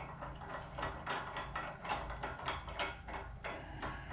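Irregular metallic clicks and scrapes, a few a second, as a T5 transmission part is handled and clamped in a bench vise.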